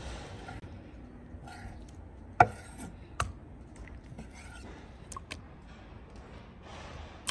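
Chef's knife cutting raw lamb testicles on a wooden cutting board: soft slicing and scraping, with a few sharp knocks of the blade striking the board, the loudest about two and a half seconds in.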